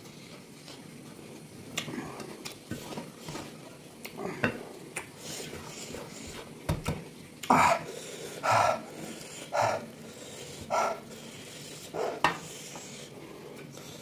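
Eating sounds from close by: chewing with small clicks of utensils against a dish, then a run of short, loud sounds about once a second in the second half.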